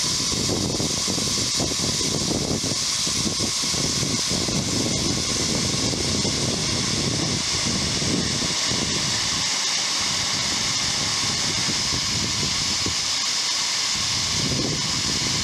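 Steady hiss of steam escaping from the coal-fired 1.5-inch scale 4-8-4 live steam locomotive, with an uneven low rumble beneath it.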